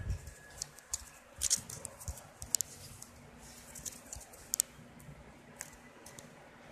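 Faint handling noises of a phone being carried and moved: scattered light clicks and rustles at irregular moments over a faint steady hum.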